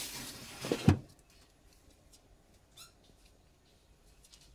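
Sliding glass terrarium door scraping open, stopping with a knock about a second in. After that come faint small ticks and taps as baby ornate uromastyx lizards nibble chopped broccoli from a dish.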